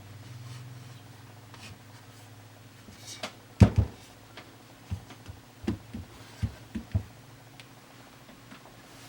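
A plastic alarm clock being handled: one sharp knock about three and a half seconds in, then a string of about seven lighter clicks and taps over the next two seconds.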